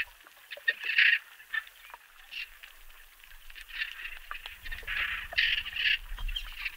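Dolphins calling underwater: a series of short pulsed calls, each well under a second, with a scatter of faint clicks between them and a low rumble underneath near the end.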